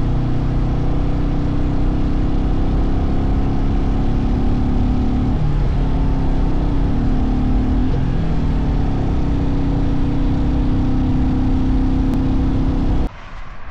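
Royal Enfield Meteor 350's single-cylinder engine running at road speed, mixed with a steady rush of air. About halfway through the engine note dips and climbs back up. The sound cuts off abruptly about a second before the end.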